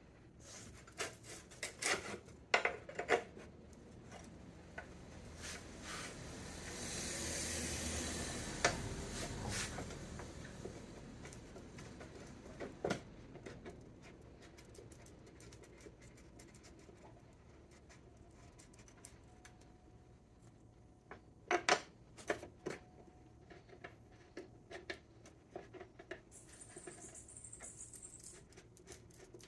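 Small metal hardware and hand tools being handled while mounting a motorcycle seat: scattered metallic clicks, light knocks and rubbing. A soft rushing noise swells and fades about seven to ten seconds in.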